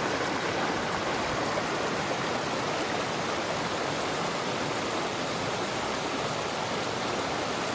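River water rushing in a steady, unbroken wash.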